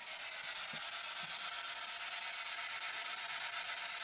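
Steady hiss of radio static from a spirit box, a radio scanning FM frequencies for voices.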